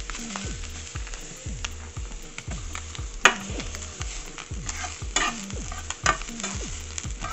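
Sliced onions and garlic sizzling in a stainless steel frying pan while a spatula stirs and scrapes them, with repeated short knocks of the spatula against the pan, the loudest about three seconds in.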